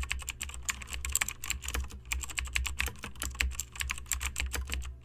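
Computer keyboard typing sound effect: rapid, irregular keystroke clicks timed to the titles being typed out letter by letter, over a low steady hum.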